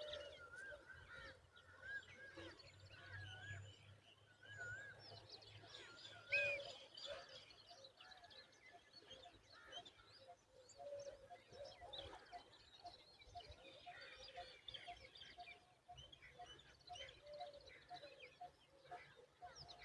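Several small birds calling faintly: a run of wavy, warbling notes in the first few seconds, scattered high chirps, then an even series of short pips, about two a second, through the second half.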